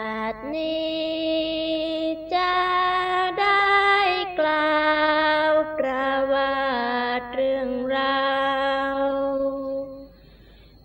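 Women singing a sorapanya chant in the Isan style, unaccompanied, drawing out long wordless held notes that step and slide between pitches, with short breaths between phrases; the singing stops shortly before the end.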